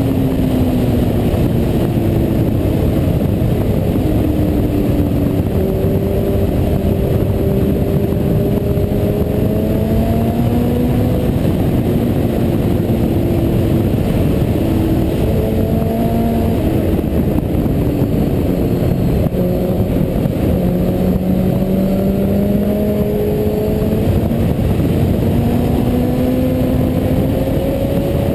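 Sport motorcycle engine at track speed, its note climbing in pitch several times and dropping back at each gear change, under heavy wind rush on the onboard microphone.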